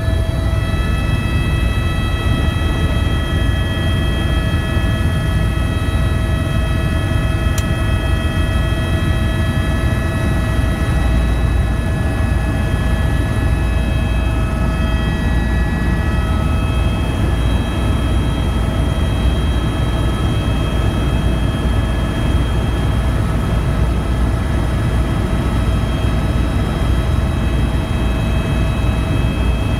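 Helicopter engine and rotors heard from inside the cabin as it takes off and climbs: a loud, steady low rumble with several high steady whining tones, a few of which drop out about halfway through. A single sharp click about a quarter of the way in.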